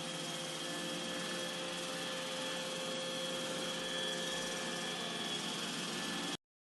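The suction motor of an iRobot Roomba j7+ robot vacuum system running steadily: a rushing noise with a high whine, cut off abruptly near the end.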